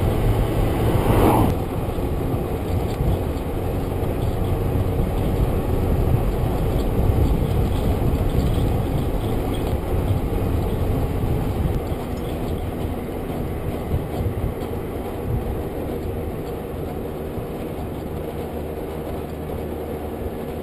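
Scooter engine running at road speed with wind rushing over the microphone. About a second in, an oncoming car passes, its sound falling in pitch as it goes by.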